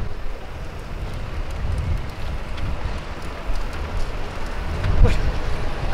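Street traffic noise: a steady low rumble and hiss of vehicles, with a brief voice-like sound about five seconds in.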